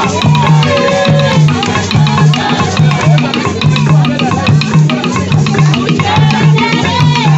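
Song with a steady repeating bass line, busy percussion and a wavering melodic line over it.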